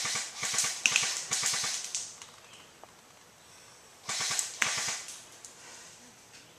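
Airsoft electric rifle firing on full auto: a burst of about two seconds of rapid clicking shots, then a shorter burst of about a second.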